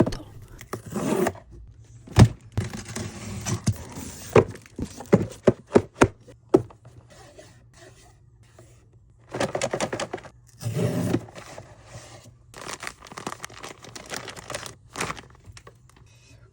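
Packaging being handled and opened: cardboard and plastic scraped, tapped and torn, with scattered sharp knocks and two louder stretches of tearing and rustling about nine and a half and eleven seconds in.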